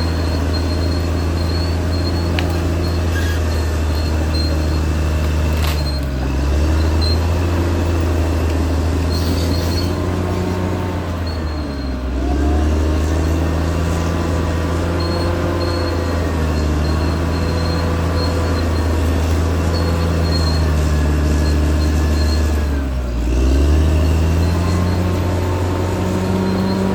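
Caterpillar D6R XL bulldozer's diesel engine running steadily under load, its pitch sagging briefly and recovering three times as the load comes on and eases.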